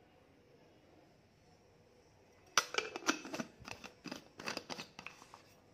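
Stainless steel travel mug and its lid being handled: after a quiet stretch, a quick irregular run of sharp clicks and knocks starts about two and a half seconds in and lasts some three seconds.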